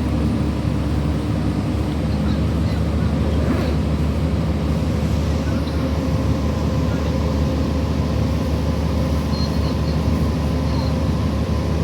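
City transit bus engine and drivetrain running with a steady low hum.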